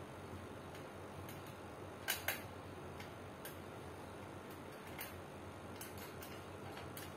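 Scattered light clicks and taps of a hand screwdriver working on a stand fan's motor housing and wire grille during assembly, with two sharper clicks about two seconds in, over steady low room noise.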